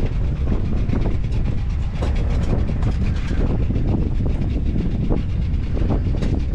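Steady low rumble with a fast, even rattle, as of a boat's engine running, with wind buffeting the microphone.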